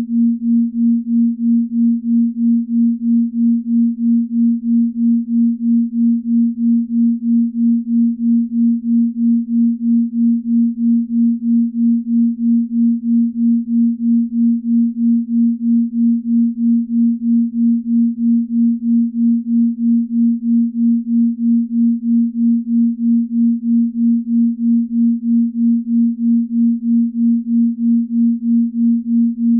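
Binaural beat: a steady pure tone a little above 200 Hz, swelling and fading evenly about two and a half times a second, a slow beat in the delta range used for deep sleep.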